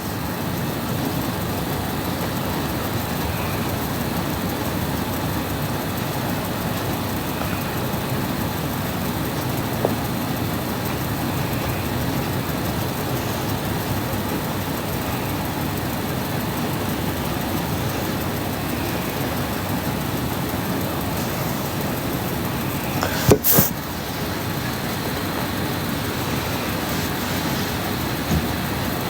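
A sleeping woman snoring: a steady, rattling low rumble. A sharp knock comes about 23 seconds in.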